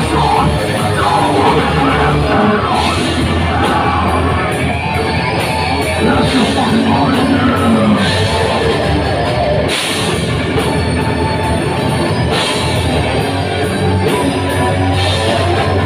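Live heavy metal band playing: electric guitar, bass guitar, drums and keyboard, with a vocalist singing and yelling into a microphone.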